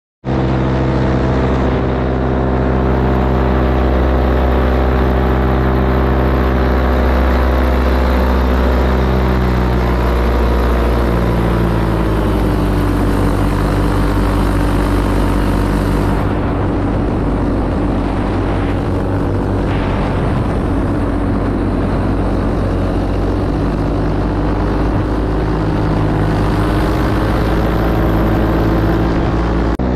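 Powered paraglider's paramotor engine and propeller running steadily in flight, its pitch shifting a little about ten to twelve seconds in, with wind rushing past the microphone.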